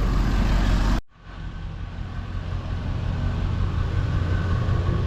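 An engine running steadily. The sound cuts out abruptly about a second in, then comes back as a steady low engine hum with faint whining tones above it.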